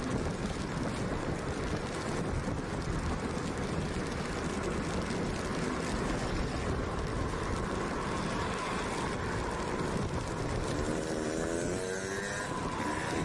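Wind rush over the microphone and road noise from a motorcycle riding at speed on a wet road, with its engine running underneath. A wavering pitched sound rises near the end.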